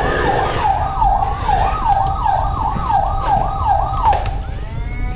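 Toy fire truck's electronic siren wailing in quick repeated falling sweeps, about three a second, cutting off about four seconds in. A different steady electronic tone starts near the end.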